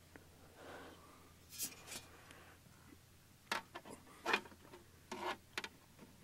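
Faint rustling and scraping close to the microphone: a soft scuff about a second in, then a run of short sharp scrapes in the second half.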